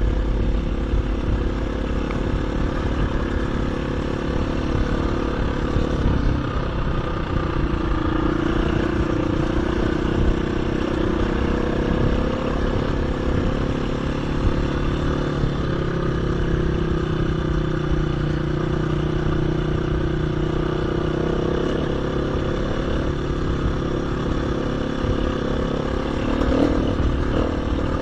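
KTM 350 EXC-F dirt bike's single-cylinder four-stroke engine running steadily at trail pace, its pitch rising and falling gently with the throttle, over a constant low wind rumble.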